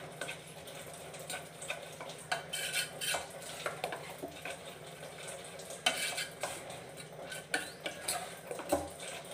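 Spoon stirring thick gram-flour batter in a stainless steel pot, with irregular scrapes and light knocks against the pot's sides and bottom.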